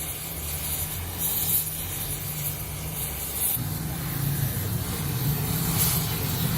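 Steady low machine drone with a high hiss over it; its tone shifts slightly higher about three and a half seconds in.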